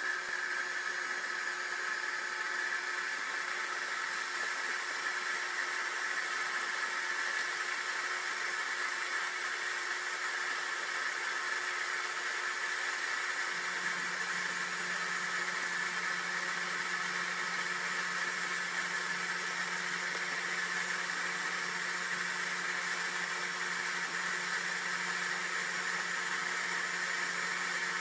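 Steady electric fan whir from a Ryobi 1000 W power inverter and the humidifier running on it under load. About halfway through, a low steady hum joins in and keeps going.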